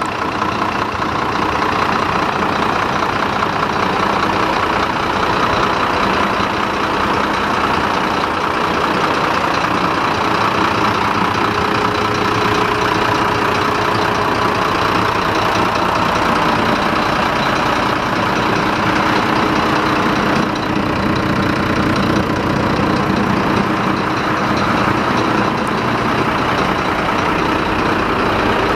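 Volvo FM9 truck's six-cylinder diesel engine idling steadily.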